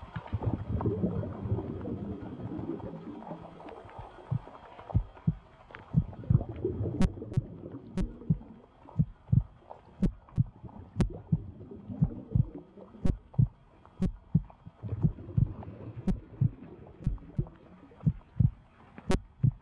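Muffled underwater sound of river current picked up by a submerged camera, with dull low thumps about twice a second and a few faint sharp ticks.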